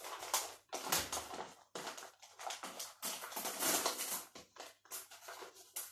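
Smarties rattling and rustling in their resealable packet as they are shaken and tipped out by hand, a run of irregular rattly bursts.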